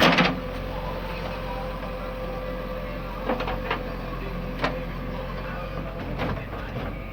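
Heavy diesel engine running steadily, with sharp knocks: a loud one at the start, then a handful scattered through.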